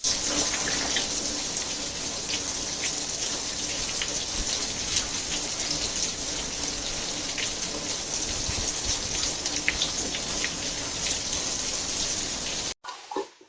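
Steady rain falling: an even hiss dotted with the ticks of single drops, which cuts off suddenly near the end.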